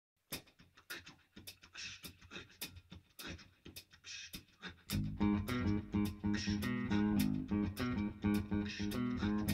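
Electric bass guitar opening a song: a run of sharp, evenly spaced percussive clicks with faint higher notes, then about halfway through, loud low bass notes come in as a repeating riff.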